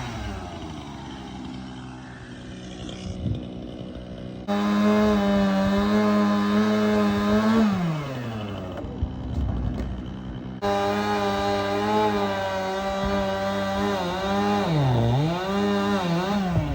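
A chainsaw engine ticks over low at first, then runs at high, steady revs and winds down about halfway through. It comes back up to high revs, sags sharply in pitch for a moment near the end, and picks back up.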